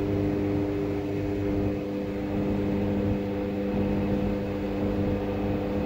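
A steady mechanical hum with a low rumble and a few fixed droning tones.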